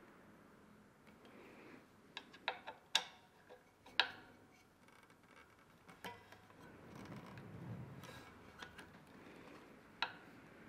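Scattered small metallic clicks and ticks from a hex screwdriver working the mounting bolts of a Shimano road disc brake caliper. A quick cluster comes about two to three seconds in, a sharp single tick at four seconds and another near the end.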